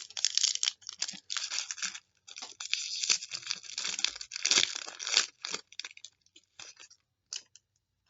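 A trading card pack's wrapper being torn open and crinkled, a dense crackling rustle that stops about five and a half seconds in, followed by a few faint scattered rustles.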